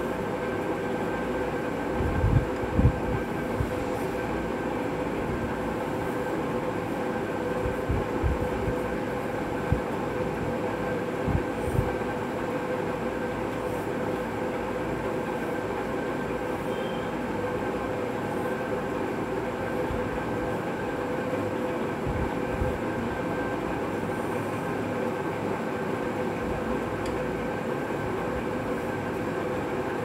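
A steady mechanical hum with a couple of fixed tones, unchanging throughout, with a few dull low thumps, the loudest two to three seconds in.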